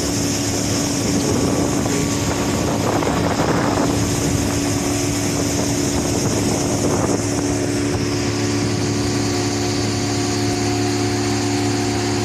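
An engine running steadily at an even speed, a constant hum that holds throughout.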